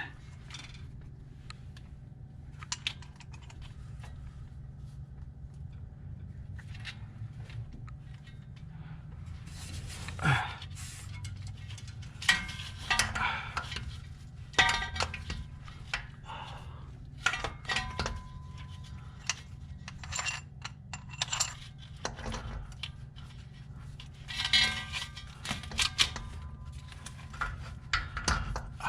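Metal hand tools and starter-mounting parts clinking and knocking on and off, a few strikes ringing briefly, over a steady low hum.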